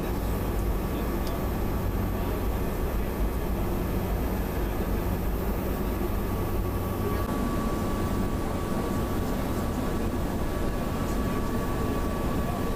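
Steady cabin drone inside an E-3A AWACS aircraft, with a faint steady whine above it.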